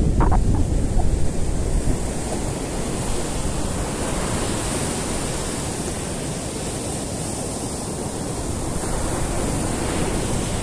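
Rough sea surf breaking and washing onto a sandy beach in a steady, continuous rush, with wind buffeting the microphone. The low rumble is strongest in the first two seconds.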